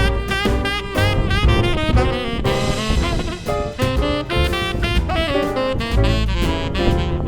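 Background jazz music with saxophone lead, bass and drums.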